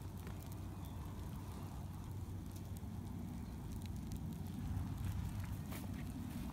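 Bonfire burning: a steady low rumble of flames with scattered sharp crackles and pops, several close together in the second half.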